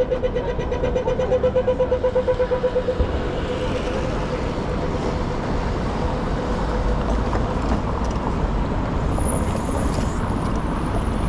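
Australian pedestrian crossing signal giving its walk cue: a quick falling 'pew' tone, then a rapid pulsing tick of about eight a second. The ticking is loud for about three seconds, then fades. Steady city traffic noise runs underneath.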